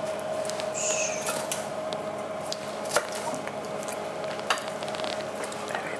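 Food preparation: a few sharp knife taps on a wooden chopping board while coriander is cut, and a spoon stirring thick creamed sweetcorn in a steel pan, over a steady hum.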